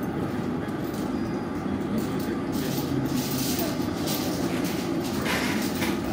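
Steady low rushing noise of the gas burners firing a glassblowing glory hole and furnaces. Some fainter, higher sounds come and go in the second half.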